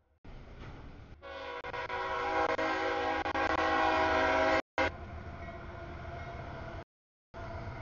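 CSX freight locomotive's air horn sounding one long chord at a grade crossing, held for about three and a half seconds and stopping abruptly, followed by the steady rumble of the passing stack train.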